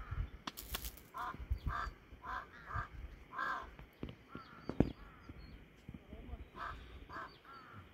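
A bird calling over and over in short, repeated calls, about two a second, in one bout over the first few seconds and another near the end. A few sharp knocks cut in, the loudest a little before the five-second mark.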